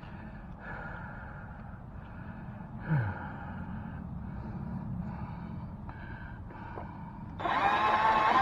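A man breathing hard in a series of separate breaths after straining, with a brief low grunt about three seconds in. About a second before the end an electric drill starts and runs steadily, drilling out a stuck screw.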